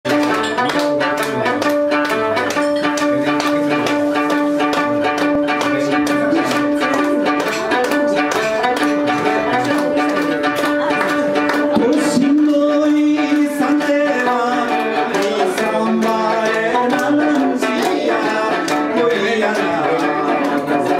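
Live Okinawan folk music: a sanshin (three-stringed lute) played in a fast, even rhythm over a long held note, with listeners clapping along.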